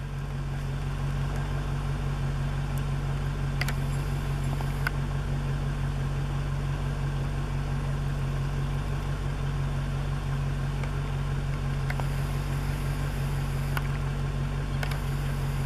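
A steady low hum of an idling engine, unchanging throughout, with a few faint clicks scattered through it.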